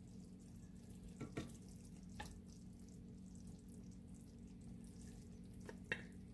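Wooden spatula pushing fried eggplant pieces off a plate into a pot of simmering curry: a few soft taps and scrapes, over a faint simmer and a low steady hum.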